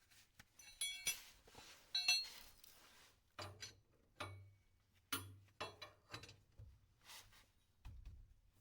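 Metal tools being handled: two bright ringing clinks, then a series of duller knocks and clatters.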